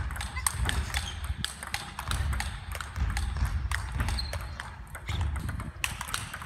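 Table tennis rally: a rapid run of sharp clicks as the ball strikes the rackets and bounces on the table, with the defender playing forehand chops.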